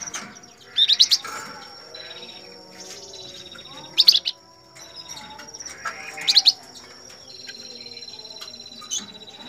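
Caged flamboyan songbirds calling: loud, sharp, high chirps in short clusters every two to three seconds, over a thin steady high whistle. A fine trill sets in about two-thirds of the way through.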